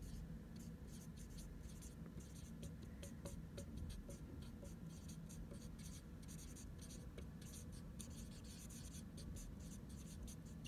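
Dry-erase marker writing on a whiteboard surface: many short, quick strokes as words are written out, over a faint steady low hum.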